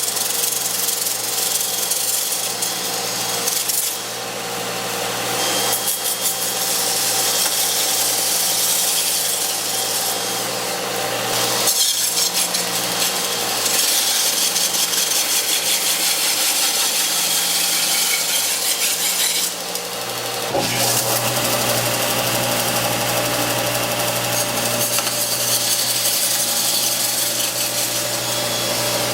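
Belt sander running while a power drill spins a strip of wood through a dowel-making jig on the belt, sanding it round into a dowel. A steady motor hum runs under a loud sanding hiss that rises and falls several times as the wood is worked.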